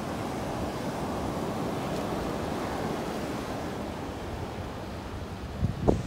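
Ocean surf washing steadily onto a beach, with wind buffeting the microphone and a brief low thump near the end.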